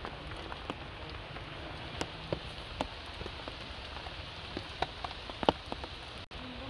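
Light rain falling steadily, an even hiss with many single drops ticking sharply on wet stone and leaves close by. The sound drops out for a moment near the end.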